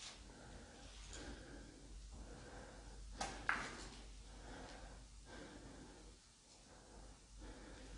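Faint sounds of a person moving through an empty room: soft breathing and light scuffing steps, with one sharper scrape or knock a little past three seconds in.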